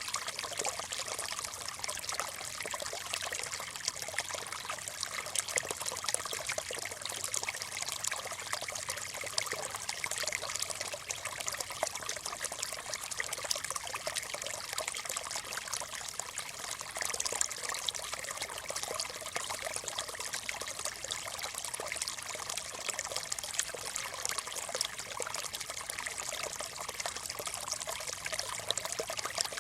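Small stream of water trickling and babbling steadily over stones, a continuous splashy gurgle.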